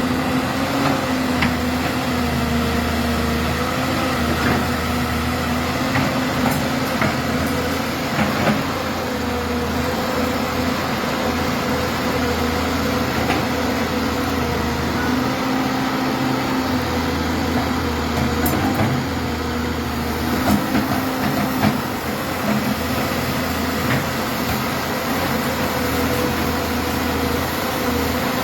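Caterpillar 200B hydraulic excavator's diesel engine running steadily under working load. Its note dips and recovers now and then, with a low rumble that comes and goes and a few faint knocks.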